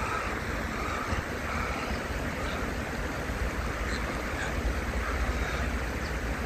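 Steady outdoor noise of wind rumbling on the microphone over the running water of a shallow stream.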